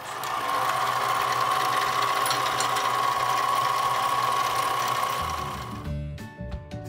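Central Machinery 7x12 benchtop mini lathe running during a drilling pass, a steady mechanical noise with a high whine from the motor and gear train. Near the end it fades out and background music takes over.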